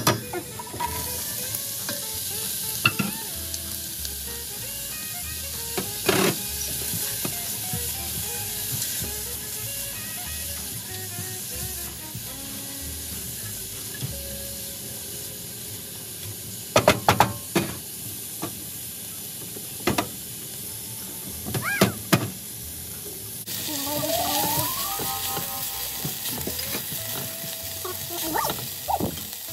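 Garlic and chopped onion sizzling steadily as they are sautéed in a stainless steel pot. A spoon and spatula stir and scrape, knocking against the pot now and then, with a quick cluster of knocks past the middle.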